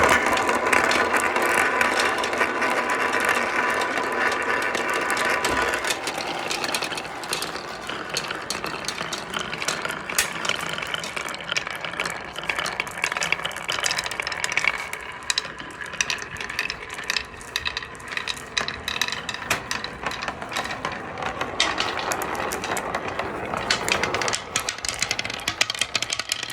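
Balls rolling and clattering down a marble run. A dense, rapid rattle fills the first six seconds or so, then gives way to many quick clicks and knocks as the balls keep running along the track.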